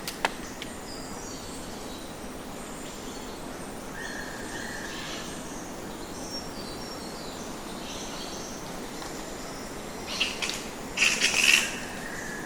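Bats flying, with short high squeaks scattered over a steady background hiss, a sharp click just after the start, and a louder flurry of squeaks and rustling about ten seconds in.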